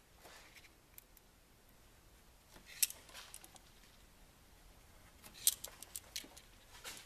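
Sparse light clicks and taps of a paint marker and hands working against the snowmobile's tunnel and running board while hole locations are marked, over faint room tone. One sharp click comes about three seconds in, and a quick cluster of clicks follows between five and six and a half seconds.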